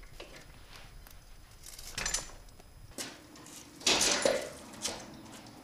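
A few knocks and metallic clattering as the motorcycle is handled, loudest in a burst about four seconds in, with footsteps on a concrete floor.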